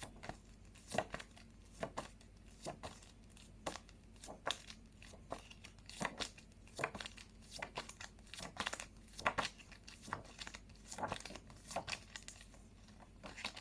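Paper phonics flashcards being handled and flipped, making quick, irregular rustles and taps about two or three times a second.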